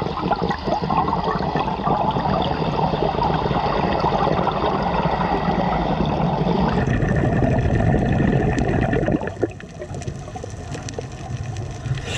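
Water bubbling and gurgling around an underwater camera: a dense, crackly rush for about nine seconds, then quieter and steadier.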